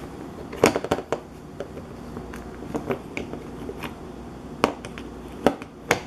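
Plastic refrigerator door handle clicking and knocking against the door as it is worked onto its mounting screws. There is a quick run of clicks about half a second in, light scattered ticks, then three sharp clicks near the end.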